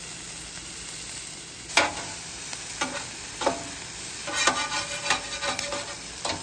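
Sliced potatoes and onions sizzling on the steel top of a Blackstone 22-inch griddle. About two seconds in, a metal spatula strikes the griddle top, the loudest sound, and then scrapes and clacks across it several times as the potatoes are turned.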